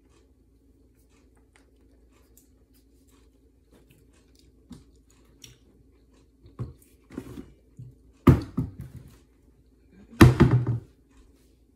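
A run of short crunchy knocks and clatter that starts sparse and grows busier, with two loud clusters about eight and ten seconds in, over a faint steady hum.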